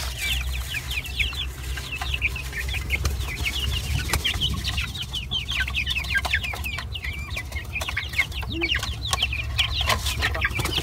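A flock of young chickens cheeping continuously, many short downward-sliding peeps overlapping, as they crowd the feeding trough at feeding time. A steady low hum runs underneath.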